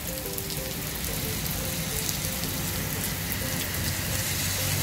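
Heavy rain falling on a road and pavement: a dense, steady hiss with individual drops clicking close by.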